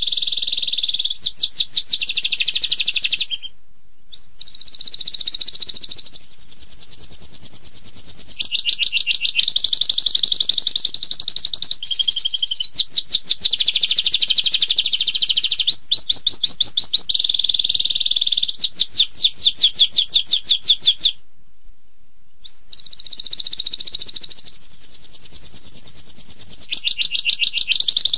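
Domestic canary singing a long, rapid-fire song of fast repeated-note trills and rolls (the 'tembakan' style), high-pitched and loud, with a short break about four seconds in and another about two-thirds of the way through.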